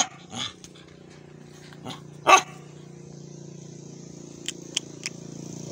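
Brindle dog barking: one bark right at the start and a single loud bark about two seconds in, over a steady low hum.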